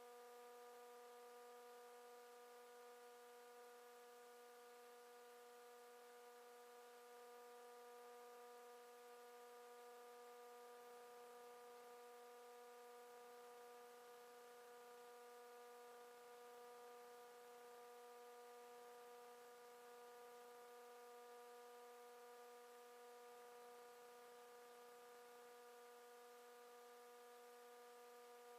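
Near silence: a faint, steady electrical hum, one pitch with its overtones, over a soft hiss.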